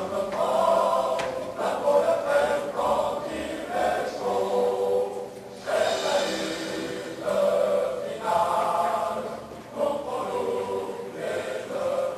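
A choir singing in slow phrases of long held notes.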